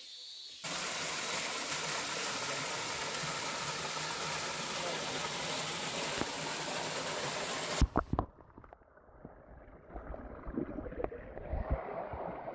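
Small waterfall pouring into a rock pool, a steady splashing rush. It cuts off suddenly about eight seconds in with a few knocks, followed by quieter trickling water close to the pool's surface.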